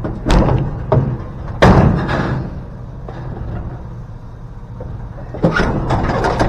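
Several heavy clunks and knocks, the loudest about a second and a half in and a few more near the end, over a steady low engine hum.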